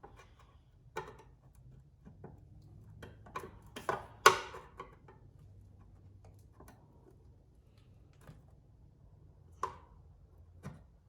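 Flathead screwdriver tips clicking and tapping against plastic push-pin retainers as the pins are pried out: scattered sharp clicks, the loudest about four seconds in, with a couple more near the end.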